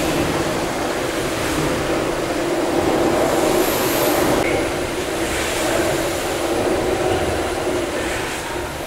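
Gimson steam beam engines running steadily: a continuous mechanical hum with hiss above it, with no break or distinct stroke standing out.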